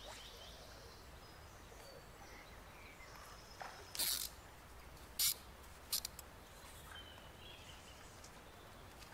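Fly line swishing briefly through the air three times, about four to six seconds in, as a dry fly is cast, over the steady low rush of a shallow river riffle. Faint birdsong.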